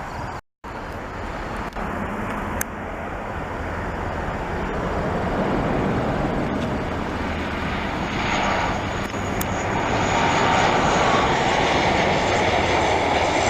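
Jet airliner engines: a steady roar that builds gradually louder, with a high whine coming in strongly about eight seconds in as the aircraft draws nearer.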